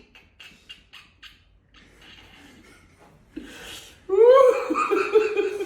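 A man lets out a loud, drawn-out, high-pitched exclamation in reaction to a chiropractic adjustment. It starts about four seconds in and comes after a few short breathy gasps.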